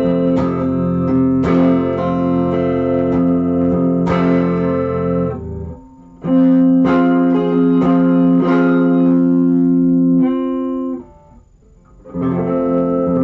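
Electric guitar on a clean amp channel strumming an F major chord and letting it ring, re-struck several times. It is cut off about five seconds in. A fresh strum rings until about eleven seconds, and after a short gap another strum starts.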